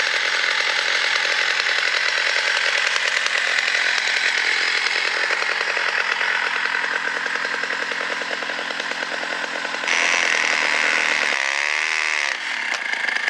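111cc, 6.5 hp chainsaw engine driving a homemade cable winch, running at high revs as it pulls its cable. About ten seconds in it revs up and gets louder, and near the end its pitch dips and comes back up.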